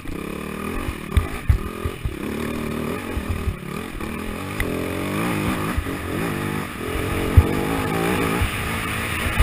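AJP SPR 310 enduro bike's engine under way, the revs rising and falling repeatedly as it pulls through the gears. Scattered sharp thumps come through as the bike rides over rough ground, one heavier knock in the second half.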